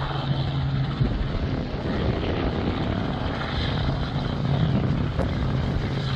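An engine running steadily, a low hum at an even pitch under a broad rushing noise.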